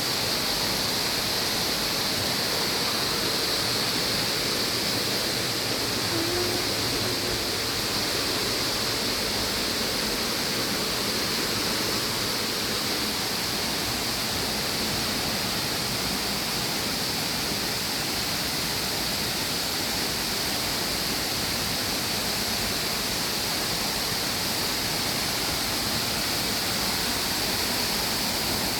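Lower South Falls waterfall pouring: a steady, unbroken rush of falling water.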